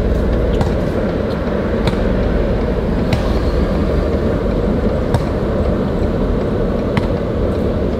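Car's steady low rumble of engine and road noise, heard from inside the cabin as it creeps along. A few faint sharp knocks come through at irregular moments.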